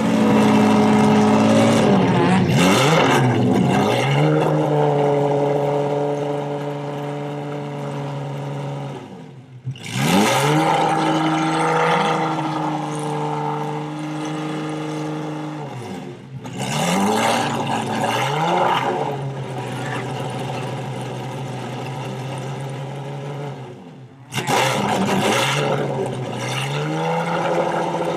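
Lamborghini Murciélago's V12 engine being revved while the car stands still: the revs climb and are held, fall away sharply, then climb again, several times over.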